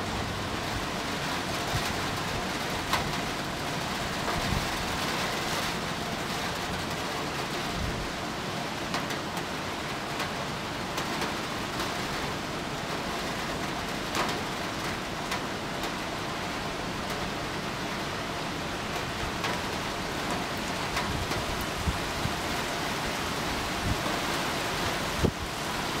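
Rain falling steadily: an even hiss with a few sharper ticks of single drops.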